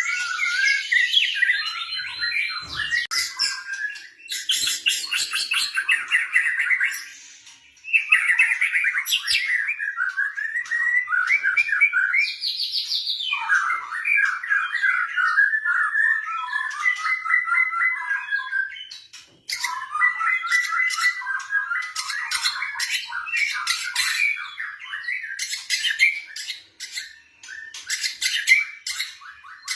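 White-rumped shama singing a long, varied song of quick whistled phrases mixed with sharp, harsh clicking notes. It breaks off briefly about 8 and 19 seconds in.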